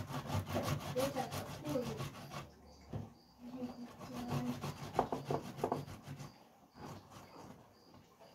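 Fresh tomatoes being rubbed up and down a flat stainless-steel grater by hand, a rapid wet rasping scrape in runs of strokes with brief pauses.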